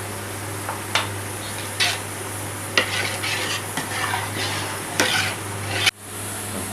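A metal spoon stirring and scraping in a cooking pot of thick dal-and-meat khichda, with several sharp clinks against the pan. The sound cuts off abruptly about six seconds in.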